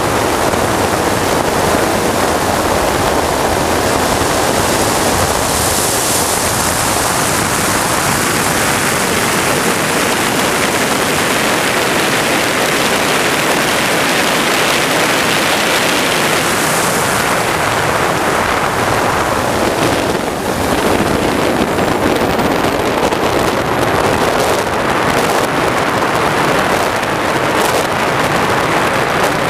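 Large RC sport jet model's turbine engine running, heard as a steady loud rush mixed with wind noise.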